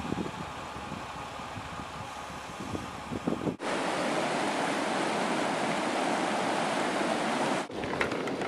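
Vehicle road noise while driving, then, after a cut about three and a half seconds in, a fast-flowing river rushing steadily. Another cut comes near the end.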